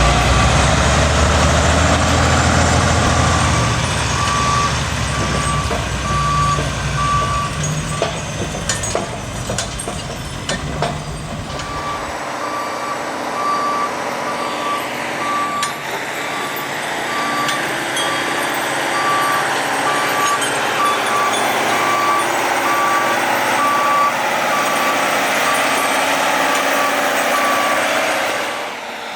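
Heavy-vehicle back-up alarm beeping steadily, about once a second, over a deep engine running; the engine sound drops away about twelve seconds in while the beeping carries on.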